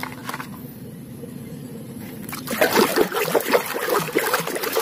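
Water splashing and sloshing as a hand scrubs a muddy plastic toy in a tub of water, starting about two and a half seconds in. Before that, a light knock and quiet handling of plastic toys.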